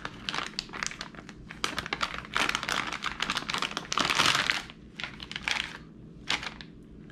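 Plastic MRE flameless ration heater bag rustling and crackling in the hands as it is opened and the heated entrée pouch is slid out. The rustling is loudest about four seconds in.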